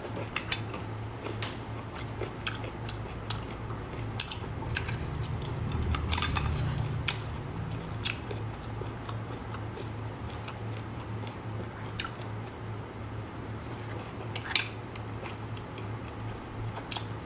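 Close-up chewing and mouth sounds of a person eating sea snails, with scattered sharp clicks, over a steady low hum.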